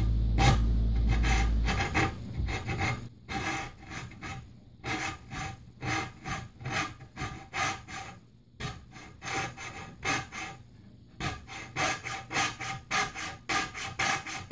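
Coping saw cutting across a wooden board by hand, its push and pull strokes rasping at about two to three a second with a few short pauses. A low rumble is loudest for about the first two seconds.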